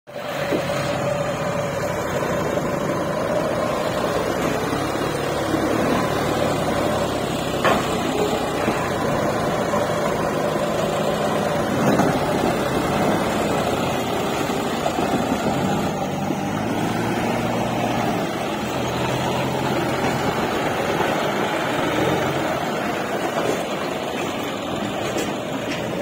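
Diesel engines of a JCB 3DX backhoe loader and a John Deere 5310 tractor running steadily close by as the loader works over the trailer, with a couple of short knocks about a third and halfway through.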